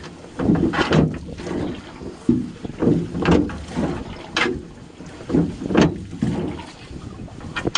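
Gillnet being hauled hand over hand into a metal boat: irregular knocks and wet splashing about once a second as the net and its catch slap against the hull and rail.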